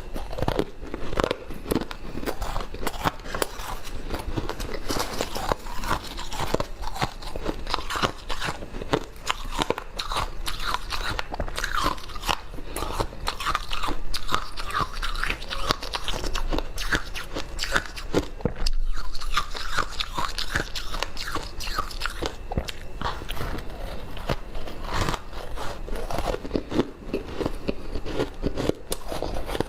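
Close-up crunching and chewing of ice, a dense run of crisp cracks and crackles as it is bitten and chewed.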